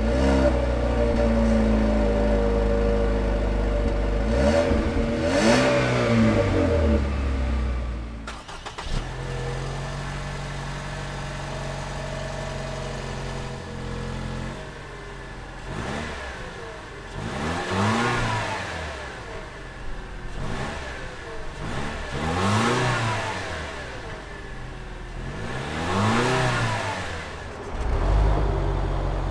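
Exhausts of 2.0-litre turbocharged four-cylinder SUVs, heard close at the tailpipe. A 2016 Buick Envision idles and is revved once; after a cut, a 2017 Lexus NX 200t F-Sport idles and is blipped several times; a 2017 Infiniti QX30 idles near the end.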